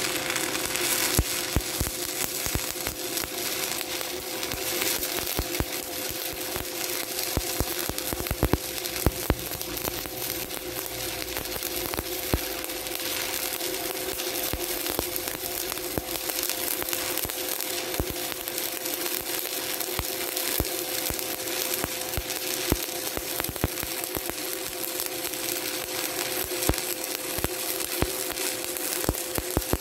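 Stick (SMAW) welding arc crackling and sizzling steadily with frequent sharp pops, as a 1/8-inch 7018 electrode lays the final cap pass uphill on a vertical (3G) plate at about 110 amps, electrode positive. A steady hum runs underneath.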